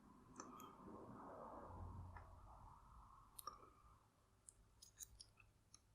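Faint, scattered metallic clicks of a lock pick and tension wrench working the pins inside a vintage American Series 600 padlock, with a soft scraping in the first few seconds.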